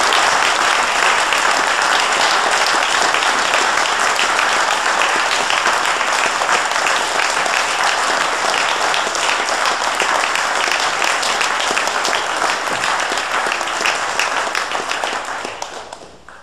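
Audience applauding, a dense, steady clapping that dies away over the last second or two.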